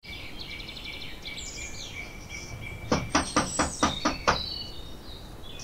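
Birds chirping, then about halfway through a quick run of about seven knocks on a door, roughly five a second.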